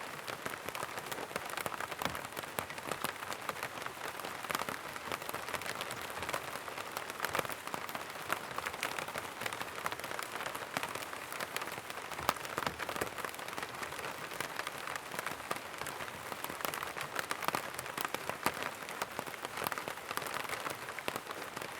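Steady rain falling, a continuous patter of many drops hitting surfaces.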